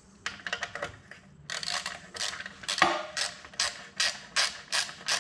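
Socket ratchet wrench clicking as it tightens an exhaust mounting bolt: a quick run of clicks about half a second in, then a steady string of about three clicks a second.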